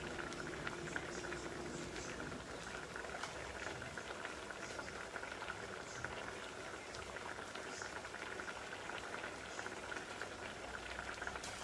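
Pots bubbling on the stove: spaghetti boiling in a pot of water and an aubergine and tomato sauce simmering in broth in a pan, a steady bubbling with many small pops.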